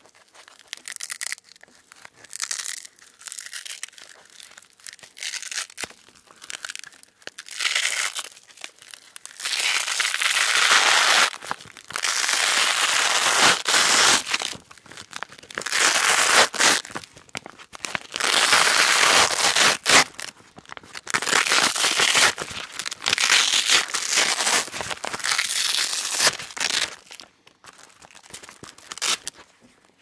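Velcro hook-and-loop fastener being ripped apart from the middle in a series of crackly tears. The first third holds short, scattered rips; after that come longer drawn-out tears of one to three seconds each, and short rips return near the end.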